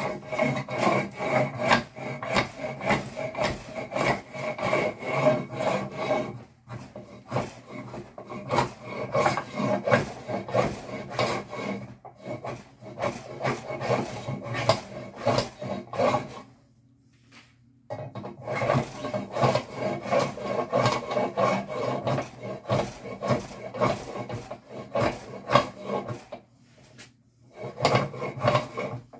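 Small block plane shaving the edge of a wooden bass neck blank in quick, repeated scraping strokes. The strokes stop briefly a few times, with a longer pause a little past the middle.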